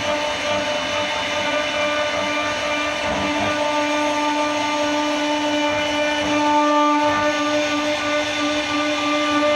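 CNC router spindle running with a steady whine over a continuous hiss.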